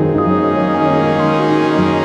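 Background music with sustained brass- or organ-like chords.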